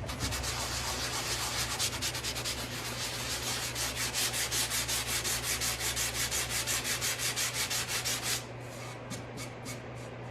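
Low-grit sanding block rubbed back and forth by hand over dried wood putty on a wooden drawer, levelling the filled patch. The strokes come fast and even, about five a second, and turn lighter and sparser from about eight seconds in.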